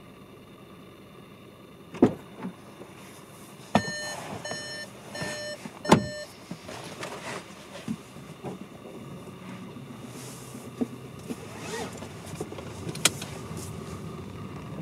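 Sounds inside a car: two thumps, then a run of about four short electronic warning beeps from the car, cut off by a heavy thump about six seconds in. After that come low steady background noise, small rustles and knocks, and a sharp click near the end.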